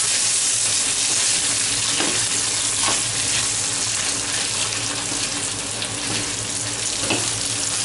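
Peas and diced ham frying in oil in a frying pan, a steady sizzle, as a wooden spoon stirs them, with a few light knocks of the spoon against the pan.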